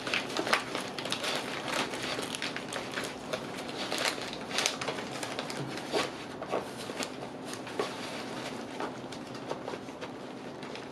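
Nylon medical pouch being packed and pushed into shape by hand: fabric rustling and plastic-wrapped dressings crinkling, with scattered small clicks and taps.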